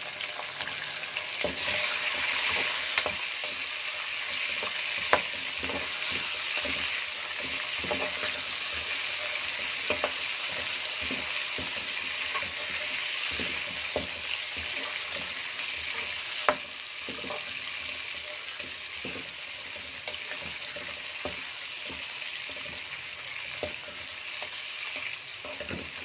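Chicken pieces sizzling in hot oil in a karahi as they brown, with a steel ladle now and then knocking and scraping against the pan while stirring. The sizzle eases slightly about two-thirds of the way through.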